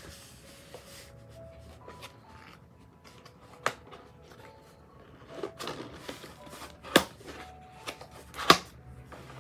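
Cardboard box being handled and opened: rustling and scraping of cardboard with a few sharp snaps, the loudest about seven and eight and a half seconds in.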